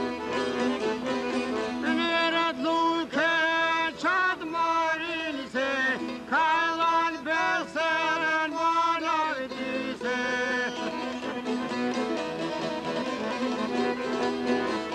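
Albanian folk song: a man sings in long, wavering, ornamented phrases over two long-necked lutes (çifteli) plucked in a steady, busy rhythm. The voice drops out after about ten seconds and the lutes play on alone.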